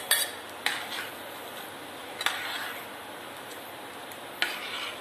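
A ladle knocking and scraping in a cooking pot as cooked dal is stirred into a simmering curry: four clanks, each trailing off in a short scrape.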